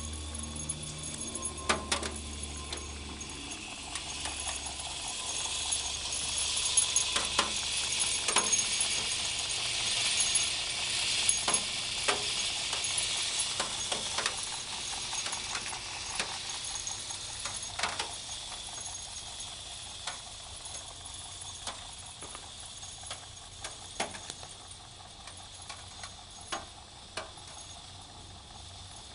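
Rotary trommel soil sifter running: the mesh drum rattles as it turns on its rubber roller wheels, with soil hissing through the screen and small stones clicking now and then. It is louder in the middle and dies down near the end.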